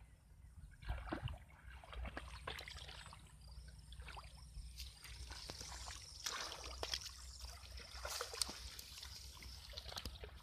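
Hands groping and sloshing through shallow muddy water, with many small irregular splashes and trickles of water.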